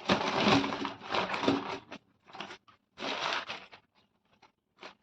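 Rustling and crinkling handling noise in several irregular bursts, the longest about two seconds at the start, as produce and wrappings are handled.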